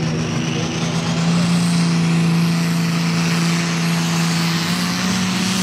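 Ford Light Pro Stock pulling tractor's turbocharged 466-cubic-inch diesel under full load while pulling the sled, running at a steady pitch. A high turbo whine climbs slowly in pitch above the engine note.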